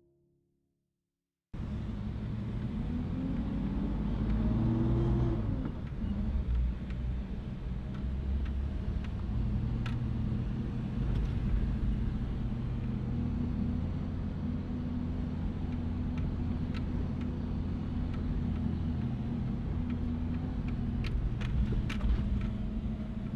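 Toyota four-wheel drive's engine and drivetrain heard from inside the cab while driving on sand, starting after a brief silence. It rises in pitch as it accelerates about four seconds in, then runs steadily, with a few light clicks and rattles near the end.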